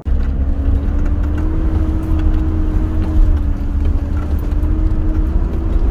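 Car on the move: a steady engine drone with heavy low rumble, its pitch creeping slightly upward.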